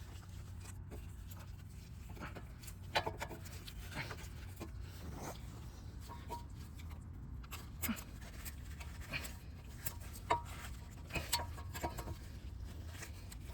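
Scattered light clicks and taps from brake pads and their clips being handled and fitted at the caliper bracket, a few sharper knocks among them, over a low steady hum.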